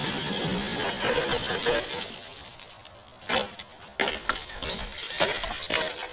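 Axial SCX-10 RC crawler's electric motor and tyres spinning in loose dirt, spraying soil, for about two seconds. It is followed by a series of sharp knocks as the truck tips over and tumbles down the slope.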